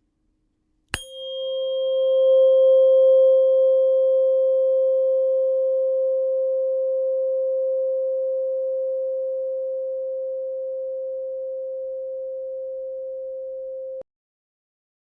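A 528 Hz tuning fork struck once about a second in, ringing a steady pure tone. A faint high clang over it dies away within a few seconds. The tone fades slowly and cuts off suddenly about a second before the end.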